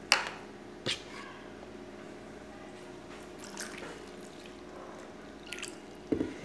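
Water measured out for gelatin with a measuring cup and a glass mixing bowl: a sharp knock just after the start and another about a second in, faint water sounds as the cup is refilled, then a few small clicks and a low thump near the end.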